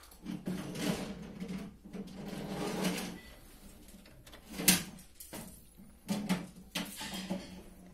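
Motorised disc tray of an Onkyo CR-70 CD receiver sliding shut with a whirring hum for about three seconds, then a sharp click a little before five seconds in, followed by further short whirrs from the CD drive near the end.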